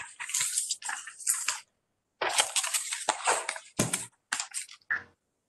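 Choppy bursts of rustling and handling noise that cut in and out abruptly, in two stretches with a sudden silence of about half a second between them.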